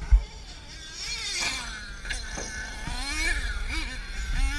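Radio-controlled off-road car's motor heard from an onboard camera, its pitch rising and falling with the throttle. There is a sharp thump just after the start, like the car hitting a bump or landing.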